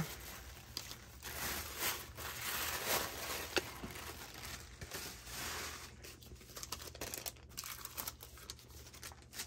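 Paper rustling and crinkling on and off as loose papers and envelopes are handled and gathered up, with a few small clicks among them.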